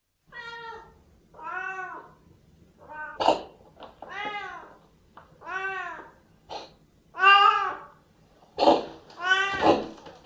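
Two Siamese cats meowing over and over in long, rising-and-falling calls about a second apart. One of them gives a short, harsh cough about three seconds in and again near the end.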